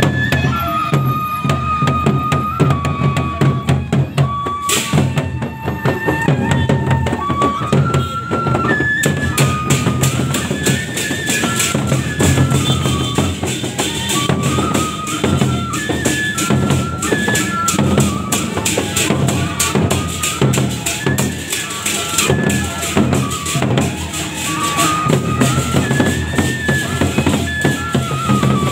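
Gendang beleq processional ensemble playing: large barrel drums beating under a held, stepwise melody on a reed pipe, with cymbals clashing thick and fast from about nine seconds in.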